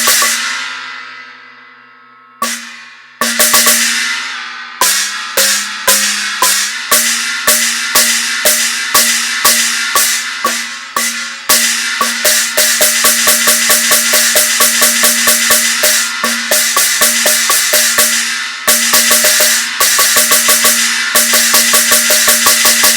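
Chinese gong struck repeatedly. The first stroke rings and fades for about two seconds, then strokes come at an uneven pace and settle into a rapid, steady beat of about three strikes a second, each one ringing into the next.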